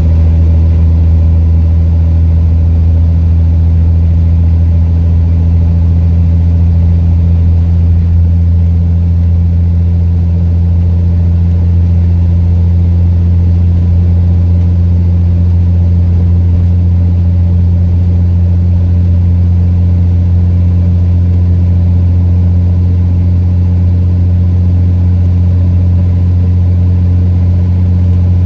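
Alexander Dennis Enviro400 double-decker bus engine running under way, heard from inside the passenger saloon as a loud, steady low drone at unchanging pitch. The drone comes from a blown exhaust.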